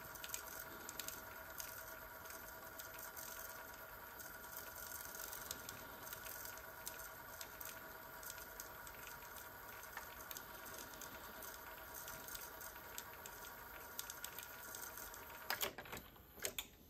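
Faint steady hum of several even tones from a Sony TC-K555ESL cassette deck running during a frequency-response test, with scattered small ticks throughout and a few louder clicks between about 15 and 17 seconds in.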